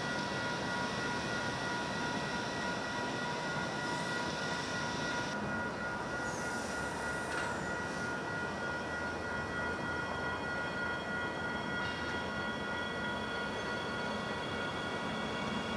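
Adelaide Metro 4000 series electric train pulling into the platform: a steady rumble with several steady high tones whose pitch pattern shifts about five seconds in and again about twelve seconds in.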